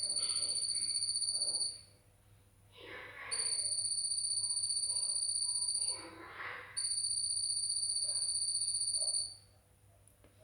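A cricket trilling: three long, high, buzzing trills of about two seconds each, with short pauses between them.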